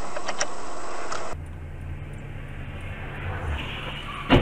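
Car interior sound from a dashcam: a steady noisy road rumble, then after a cut a quieter steady engine hum in the cabin. Near the end comes one sharp bang, the loudest sound.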